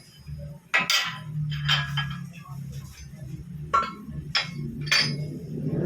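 Metal tools and scooter engine parts clinking and knocking in several sharp strikes while a Mio i125 engine is being taken apart, over a low steady hum.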